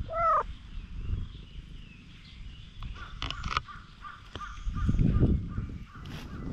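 A single short animal call right at the start, clear and pitched, rising then falling. It is followed by softer rustling, louder about five seconds in.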